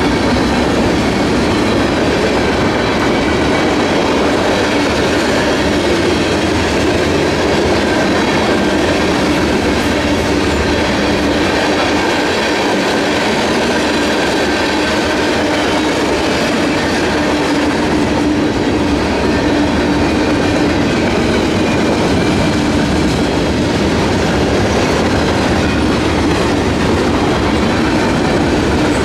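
Union Pacific manifest freight train's cars rolling steadily past, wheels clicking over the rail joints.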